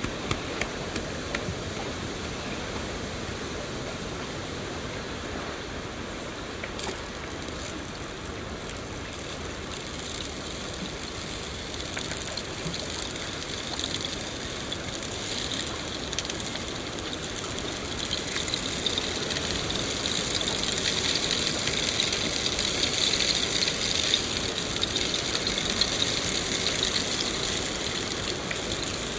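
Steady rain falling, an even hiss that grows heavier and brighter about two-thirds of the way through.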